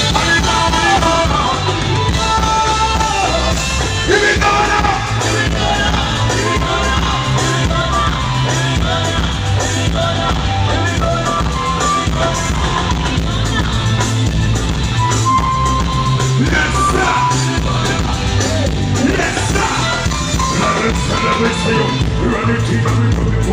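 Live band playing at a sound check: a bass line of repeated low notes under a melody on other instruments, with a voice singing at times.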